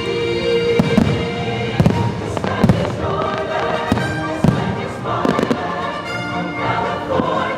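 Fireworks shells bursting in a string of sharp bangs, several seconds' worth at uneven intervals, over the fireworks show's music soundtrack.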